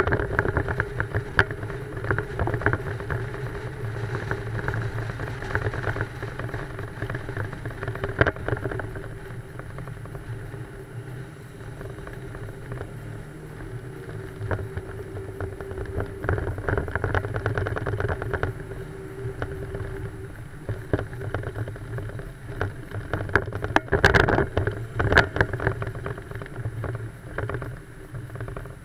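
Old car driving: its engine running steadily under wind buffeting on a microphone mounted outside the car, with a cluster of sharp knocks a few seconds before the end.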